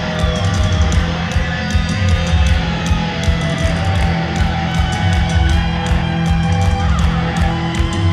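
Loud live punk rock: distorted electric guitars, bass and drums, with cymbals struck in a steady beat.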